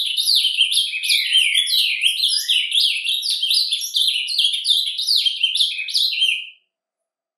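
Ultramarine grosbeak (azulão) singing its surdina, the quiet, rapid warbling subsong: a continuous jumble of quick chirps and gliding twitters with no pauses. It stops abruptly near the end.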